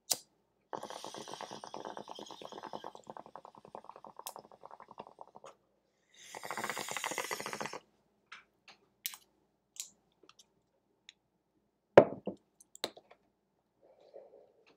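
Bong hit: water bubbling rapidly for about five seconds as smoke is drawn through, then a louder, harsher rush of air as the chamber is cleared. Scattered clicks and one sharp knock about twelve seconds in follow, then a breathy exhale of smoke near the end.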